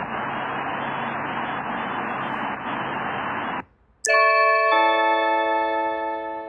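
Steady hiss of a doorbell camera's microphone, which cuts out a little over three seconds in. Just after, an electronic doorbell chime rings two notes, ding-dong, and fades away.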